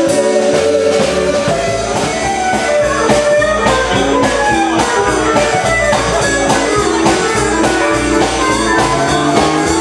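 Live western swing band playing an instrumental passage, with guitar and a steady drum beat.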